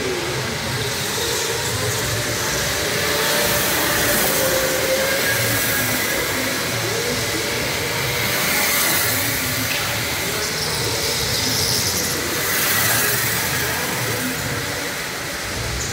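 Go-karts running laps on an indoor track, a steady din that swells as the pack comes round, about three times, with motors rising and falling in pitch, echoing in the big hall.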